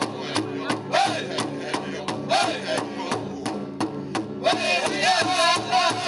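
Powwow music: a drum beaten at a steady pulse of about three beats a second, with a voice singing over it. The beats pause briefly about four seconds in while the singing goes on.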